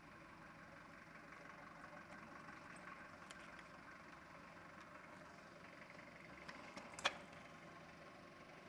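Faint steady workshop background noise with a few light metallic ticks of a screwdriver working at the crankshaft main bearing caps in a bare cast-iron engine block. One sharp metal click about seven seconds in is the loudest sound.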